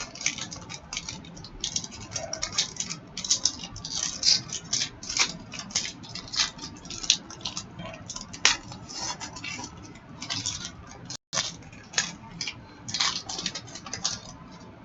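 Trading cards and foil pack wrappers being handled at close range: quick, irregular flicking and rustling, with a brief dropout a little past the middle.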